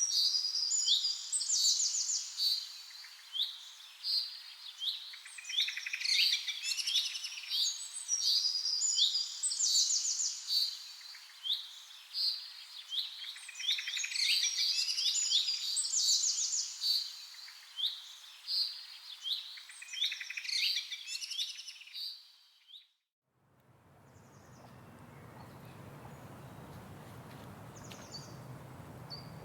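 A dense chorus of several songbirds, overlapping chirps and trills that repeat in phrases, cutting off abruptly about three-quarters of the way through. After a brief gap comes a steady rushing noise of falling water from a waterfall.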